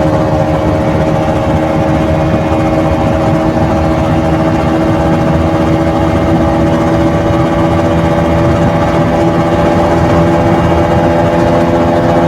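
KTM RC 200's single-cylinder four-stroke engine through its stock exhaust, running steadily at an even engine speed, picked up by a microphone mounted on the bike.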